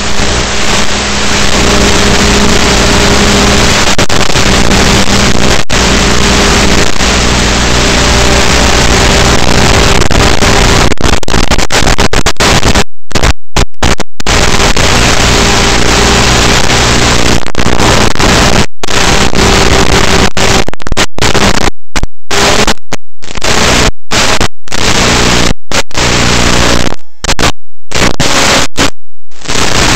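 Loud hiss and static from an analog FPV video link's audio channel, with a steady low hum underneath. From about halfway on, it cuts out to silence again and again for brief moments.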